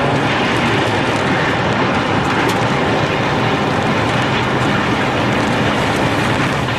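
Strong storm wind blowing hard across the microphone, a loud steady rushing noise with faint rattles in it.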